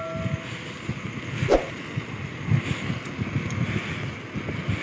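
Wind buffeting the microphone while riding, an uneven low rumble. A bell's ringing tone fades out about half a second in.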